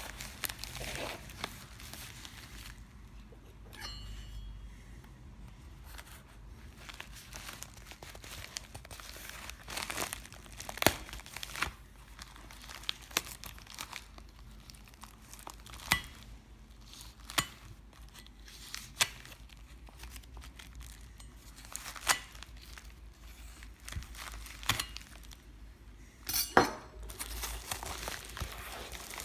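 Plastic wrapping and packaging crinkling and rustling as it is handled, broken by scattered sharp clicks and taps.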